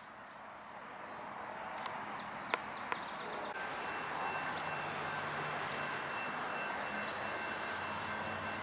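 Faint outdoor ambience that slowly grows louder, with a low hum coming in about halfway and a few light clicks.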